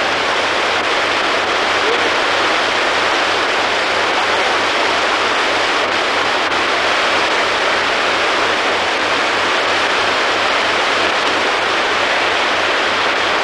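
Steady rush of river water tumbling over rocks at a waterfall, loud and unchanging.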